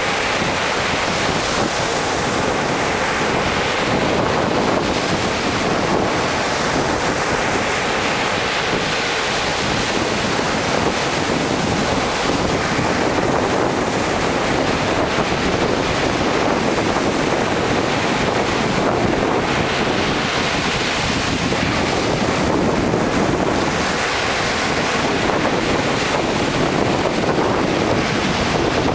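Sea surf breaking and washing up a sandy beach in a steady rush, with wind blowing across the microphone.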